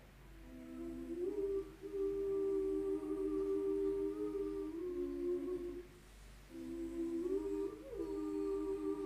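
Humming: long, held notes in two slow phrases, with a short pause about six seconds in.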